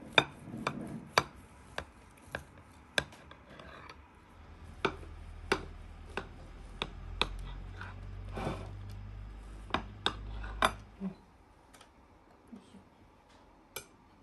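Knife clicking and scraping against a ceramic plate while a crumble-topped pie is cut and a slice is lifted onto a side plate: a string of sharp clicks that thins out over the last few seconds, with a low rumble through the middle.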